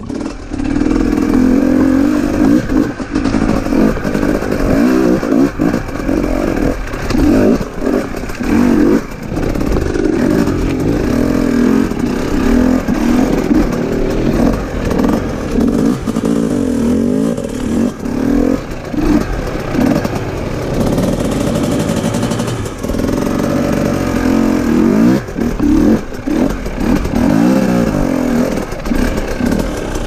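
KTM enduro motorcycle engine climbing a rocky trail, revving up and down over and over as the throttle is worked, with frequent knocks and clatter from the bike over rocks.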